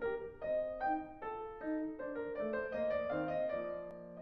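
Background music: a gentle piano melody of separate notes over a sustained accompaniment.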